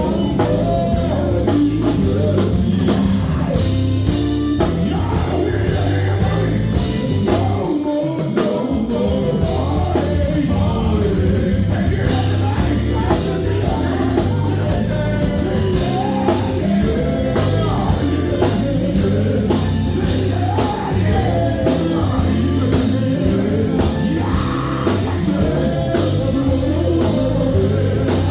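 Gospel group singing over a live band with drums, loud and continuous.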